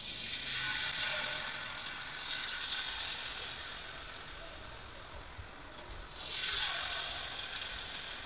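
Peyek batter of rice flour and peanuts sizzling in hot cooking oil in a wok: a steady frying hiss that flares up as the batter hits the oil and swells again about six seconds in. A short sharp tap near the end.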